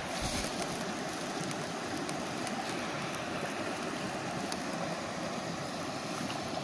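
Steady rush of a small, shallow stream running over a riffle.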